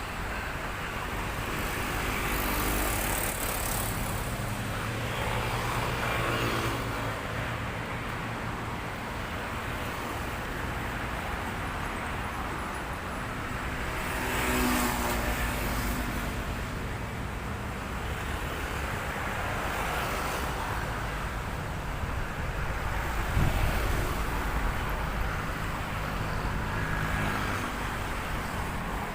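Steady road traffic, with several vehicles passing one after another and engines rising and fading as each goes by. The loudest pass comes about three quarters of the way through.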